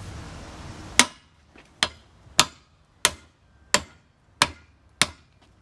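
Hammer tapping a part into place during tire mounting on a wheel: seven sharp, evenly spaced blows, about one every two-thirds of a second, starting about a second in.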